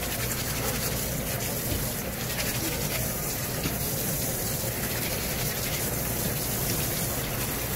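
Water running steadily from a tap and splashing.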